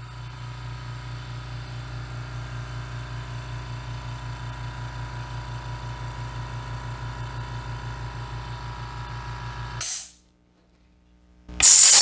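Fortress Ultra Quiet 1-gallon oil-free air compressor running just after being switched on, a steady hum with a fast, even pulse as it fills its tank. About ten seconds in it stops suddenly. Near the end a loud hiss of rushing air starts.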